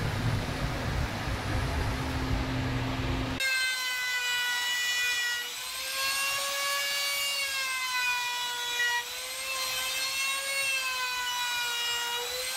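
A steady, noisy machine sound for about the first three seconds, then an abrupt change to a compact trim router running with a high, steady whine whose pitch wavers slightly as it cuts the juice groove in an end-grain cutting board. The whine stops just before the end.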